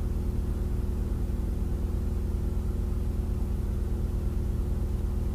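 Steady low machine hum with a constant pitch and no changes; the salt being shaken in is not audible over it.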